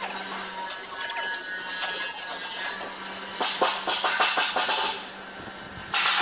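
Quick metallic clicks of bolts on a steel thresher stand being tightened with a wrench, a run of them about three and a half seconds in, over a steady low hum. A louder rush of noise comes in near the end.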